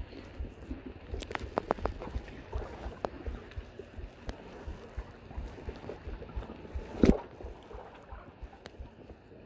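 Handling noise from hands working fishing line close to the microphone: a quick run of clicks about a second in and one loud knock about seven seconds in, over a low rumble.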